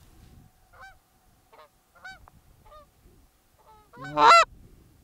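Canada goose honks: a few single honks in the first three seconds, then a loud, quick run of honks about four seconds in.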